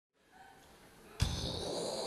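Near quiet, then a sudden low thump about a second in, followed by a steady hiss: the inhale of a Darth Vader respirator breathing sound effect.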